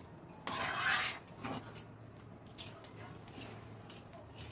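A spoon scraping and stirring thick besan paste in a pan: one longer scrape about half a second in, then fainter scrapes and taps.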